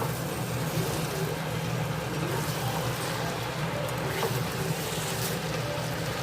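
Chicken frying in a pan for dry chilli chicken: a steady sizzle over a low hum, with a few faint ticks.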